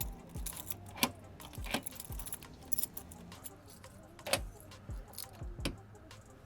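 Irregular metallic clicks and clinks of lock hardware and tools being handled and worked, with a few dull knocks between them.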